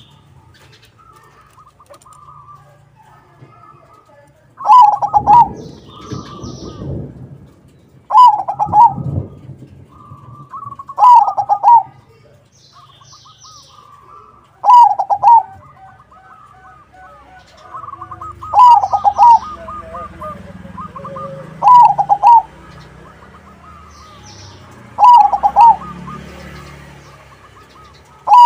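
Crossbred zebra dove (perkutut) singing. A loud phrase of a few quick coos comes about every three to four seconds, eight times, with softer trilling coos and faint high chirps of other birds in between.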